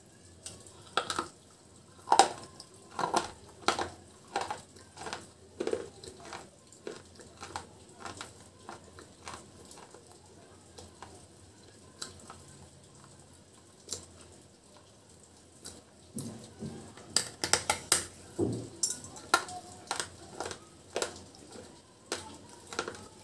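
Close-up biting and chewing of hard white chips coated in black paste: sharp crunches and crackles. They come thickest about two seconds in and again from about sixteen seconds, with lighter chewing clicks between.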